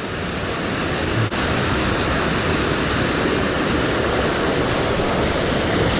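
Canyon creek swollen with rainstorm runoff, rushing water making a steady, even noise.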